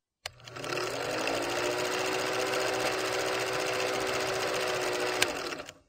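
Film projector running with a rapid, steady clatter and a faint steady hum, as heard under an old film countdown leader. It starts with a click and has a sharp click about five seconds in, then stops just before the end.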